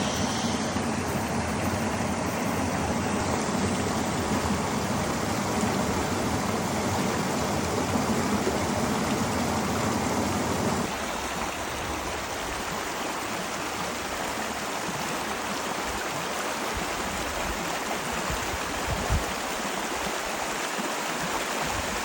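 Mountain river water running steadily over rocks; the deeper rumble drops away about halfway through.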